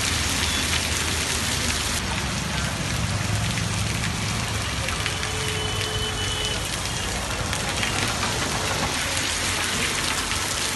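Heavy rain falling steadily on hard surfaces, an even hiss of rain throughout.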